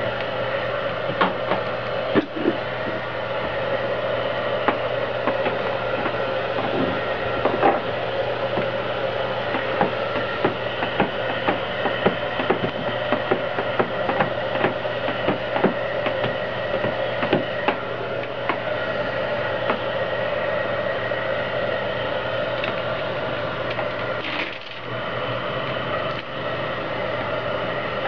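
Handheld heat gun blowing steadily: an even fan-and-motor whir with a fixed hum. Irregular light clicks and taps come and go over it, and the whir dips briefly near the end.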